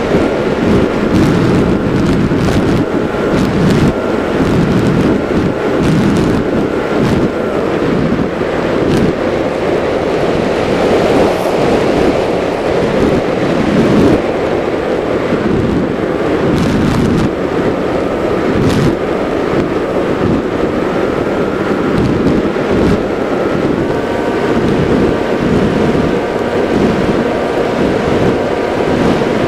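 Wind rushing over the onboard microphone of a flying RC wing. Under it is the steady whine of the wing's motor and propeller, which steps down in pitch about a quarter of the way in and steps back up in the last third as the throttle changes.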